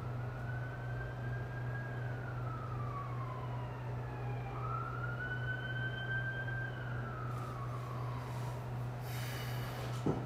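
A faint siren wailing, its pitch rising and falling slowly twice, over a steady low hum. A brief rustle and a click come near the end.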